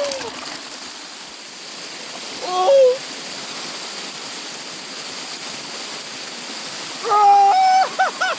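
Waterfall water rushing steadily, with two brief shouted calls: one near the third second and a longer one about 7 s in.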